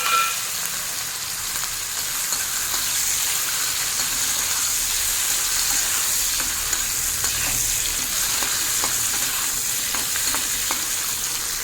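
Prawns sizzling steadily as they fry in hot mustard oil in a kadai, with a few light clicks of stirring.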